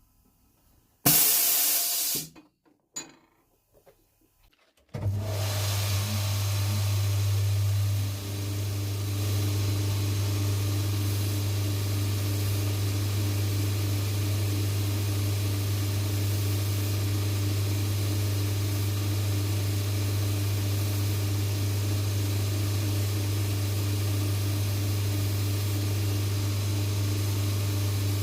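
A short loud burst of hissing about a second in, then a workshop machine's electric motor starts about five seconds in and runs steadily with a low hum.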